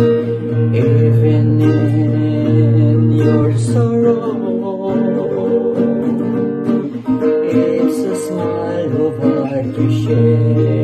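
A man singing a devotional song, accompanying himself on a strummed acoustic guitar.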